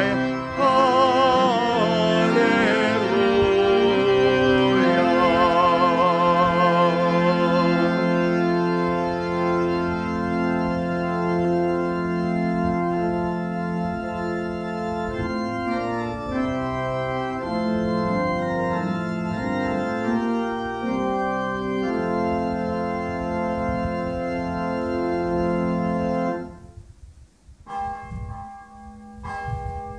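Church pipe organ accompanying a hymn, with voices singing the melody in wavering vibrato for the first several seconds, then the organ alone holding sustained chords. The organ cuts off a few seconds before the end, and a church bell begins ringing.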